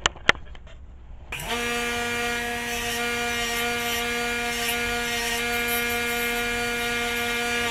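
Grinder shaping a small cut disc of sheet steel, played back at four times speed: a steady high-pitched motor hum over a continuous grinding hiss, starting about a second and a half in after a single sharp click.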